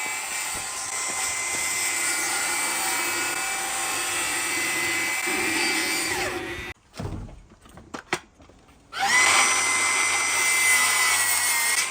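Milwaukee M18 FUEL 184 mm cordless brushless circular saw running at speed with a steady high whine. Its pitch sags just before it stops about seven seconds in. After a couple of quiet seconds with a few knocks, it spins up again about nine seconds in and runs steady.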